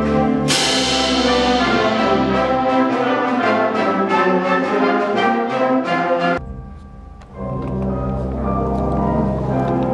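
Concert band playing held brass chords, French horns and trumpets to the fore, with a cymbal crash ringing out about half a second in. The music breaks off a little after six seconds in, and softer held chords come back about a second later.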